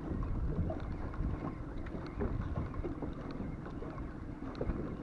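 Wind buffeting the microphone in a steady low rumble over open sea, with faint scattered small ticks.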